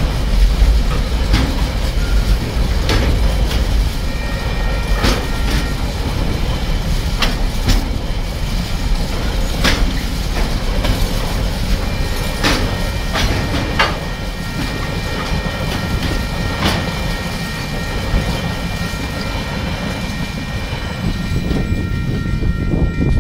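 TasRail freight train's container wagons rolling past: a loud low rumble with irregular sharp clacks of the wheels over rail joints, easing a little past the middle as the last wagons go by. A steady high ringing tone sounds through much of it.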